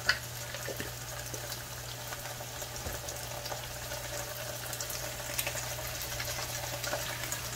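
Chopped onion, bay leaves and ginger-garlic paste sizzling in hot oil in a frying pan, a steady soft crackle of many small pops over a low hum. A single sharp click right at the start.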